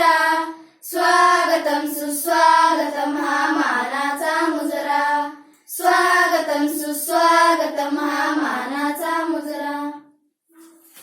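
A child singing unaccompanied, with no instruments, in two long sung phrases with a short break between them.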